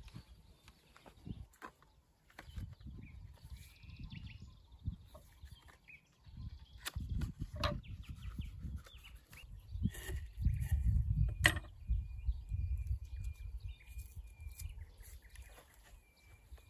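Outdoor ambience of uneven low wind rumble on the microphone, swelling loudest about two-thirds in, with scattered sharp knocks of a knife on a wooden cutting board. Birds chirp in the background, and a thin steady high note comes in during the last third.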